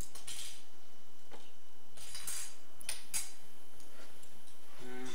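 Plastic spoons clinking and scraping against glass tumblers of water as they are stirred, in a handful of separate short clinks.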